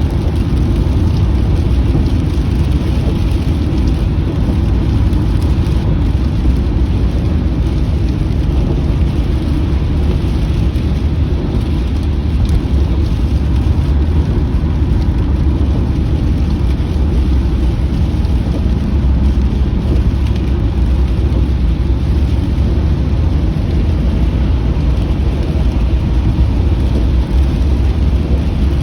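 Steady low rumble of a car driving in the rain, heard from inside the cabin, with the hiss of rain on the car over it.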